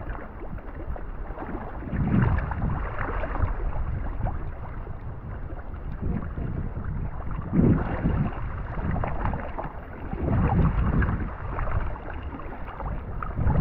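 Water splashing and sloshing around a sea kayak as it is paddled, with wind rumbling on the microphone. The louder surges come about two seconds in, about seven and a half seconds in, and again around ten seconds in.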